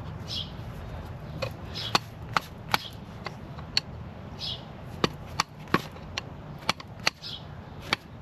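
About a dozen sharp, irregular taps from a tool chipping away at the corrosion around a corroded anode bolt on a boat outdrive, to free the bolt.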